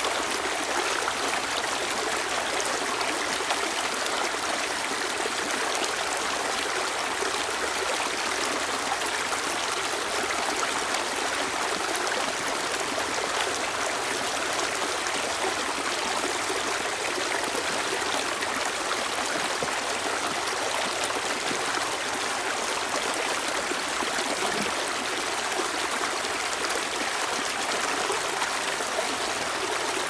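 Stream water spilling over rocks in a small cascade: a steady, even splashing rush, mostly high in pitch with little deep rumble.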